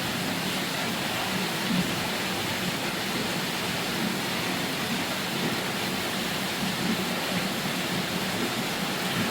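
Steady rain falling, an even hiss with small irregular louder spots scattered through it.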